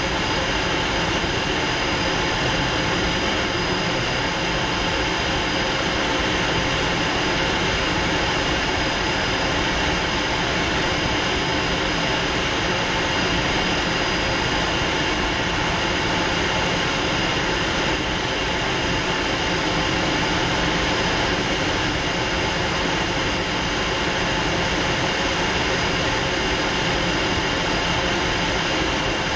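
Fouga Magister jet trainer in flight, heard from inside the cockpit: its twin Turbomeca Marboré turbojets and the airflow over the canopy make a steady, unbroken rush with a steady high whine on top.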